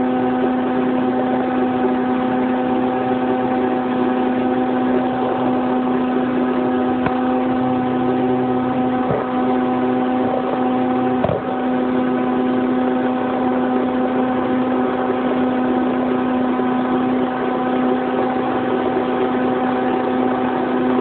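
Small gas engine of a Billy Goat power machine running steadily at a constant speed, giving an even, unchanging hum. A couple of brief knocks come about nine and eleven seconds in.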